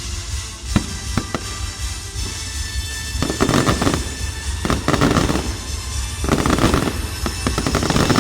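Fireworks going off over music: a few sharp bangs in the first second and a half, then three spells of dense crackling, each about a second long.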